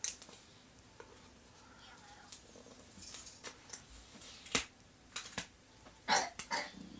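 Small cardboard product box being handled and opened by hand: scattered clicks, taps and scrapes, the sharpest about four and a half seconds in.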